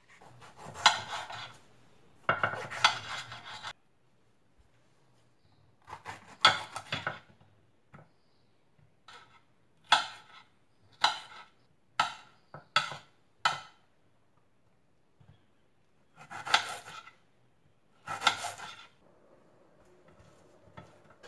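Kitchen knife cutting tomato and onion on a plate: scattered short cuts and scrapes with gaps between them. In the middle comes a quick run of about six sharp knocks of the blade on the plate.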